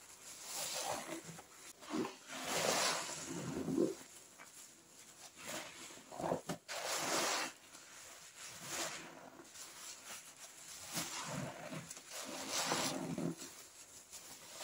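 Wet squelching and squishing of soapy pine toilet cleaner, in a series of separate squishes about a second apart.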